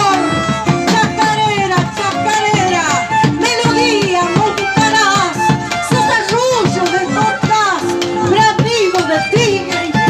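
Live Argentine folk ensemble: several bombos legüeros beaten with sticks in a steady rhythm, with strummed acoustic guitar and voices singing a melody over them.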